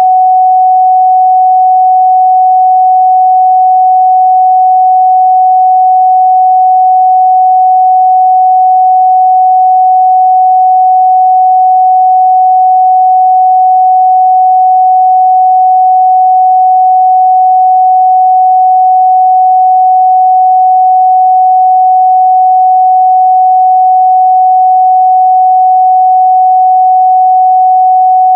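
A steady, loud 744 Hz sine-wave test tone, one pure pitch held without change.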